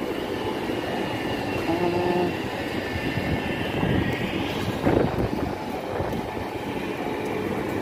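Steady city street noise, a continuous hum of traffic and machinery. A short pitched tone comes about two seconds in, and a brief knock just before five seconds.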